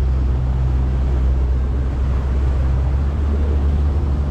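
Motorboat engine running steadily, a constant low drone with no change in pitch.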